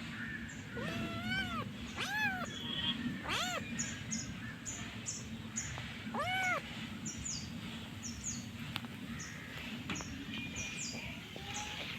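Kitten meowing four times, each meow rising and then falling in pitch, with faint short high chirps repeating about twice a second in the background.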